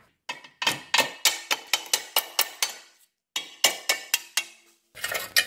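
Hammer blows knocking the worn lower ball joint out of a VW Golf/Jetta Mk4's front suspension, a quick series of ringing metal-on-metal strikes about four a second, with short pauses about three seconds in and again near the end.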